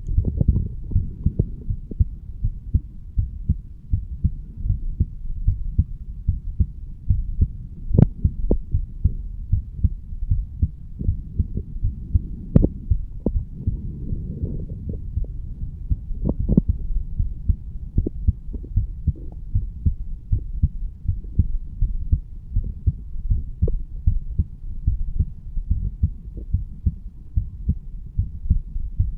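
Human heartbeat heard at the bicuspid (mitral) valve area: a steady, regular rhythm of low thumps. A few sharper clicks stand out, the loudest about eight seconds in.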